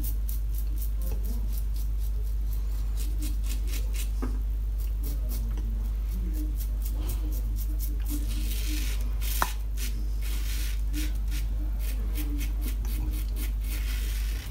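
Karve CB safety razor strokes scraping through stubble and lather: many short, quick rasping scrapes, over a steady low hum.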